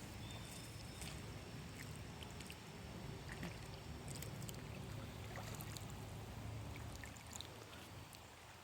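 Faint running water with a steady low hum underneath and a few scattered small ticks.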